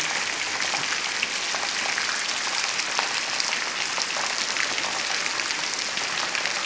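Heavy rain falling steadily: an even hiss with the fine patter of many drops.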